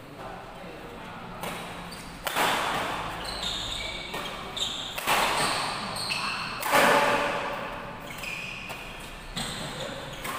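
Doubles badminton rally: rackets striking the shuttlecock every second or so, the hardest hits echoing in a large hall, with short high squeaks of shoes on the court floor between the strokes.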